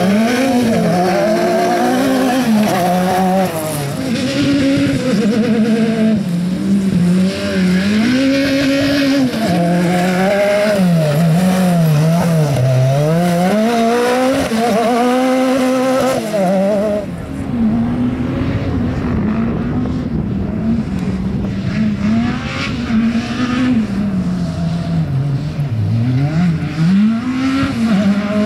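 Autocross race car's engine being driven hard on a dirt and grass track, its note climbing and dropping over and over as it accelerates and lifts off every second or two.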